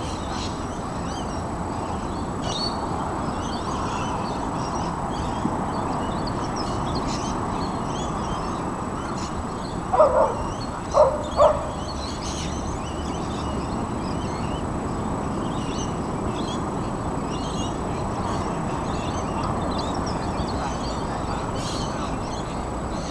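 Small birds chirping over a steady background rush, with three short, loud animal calls about ten to eleven and a half seconds in.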